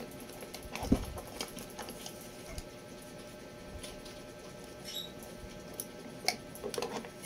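Small clicks and rustles of plastic cables being handled as a DC power plug is fitted to a security camera's power lead, with a sharper click about a second in and a few more near the end.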